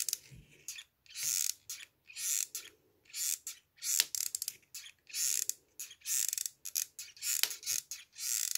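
Hot glue gun's trigger squeezed over and over, its feed mechanism creaking and clicking as it pushes the glue stick through, in short rasping strokes about once a second with a few sharp clicks.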